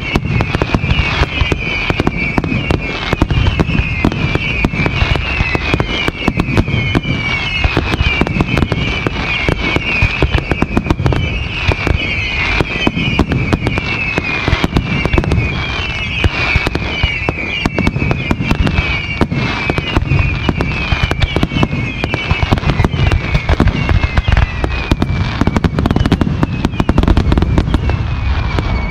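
Aerial fireworks display in a rapid, unbroken barrage of bangs, with many short whistles falling in pitch all through it; the whistles die away near the end.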